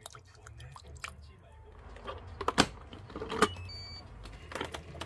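Electric pressure rice cooker being closed and set to sticky-rice mode: sharp clicks and knocks from its lid and controls, the loudest two about two and a half and three and a half seconds in, with a few short, high beeps from the cooker.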